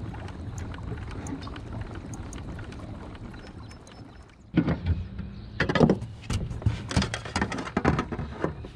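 Steady low rumble, then, from about halfway, a run of loud knocks, bumps and rattles against a plastic kayak hull while a caught fish and gear are handled on board.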